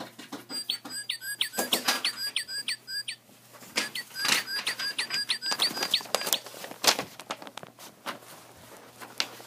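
Recorded bird song from a singing plush bird toy: two quick runs of clear down-slurred whistled notes, about four a second, with a short break between them and light handling clicks.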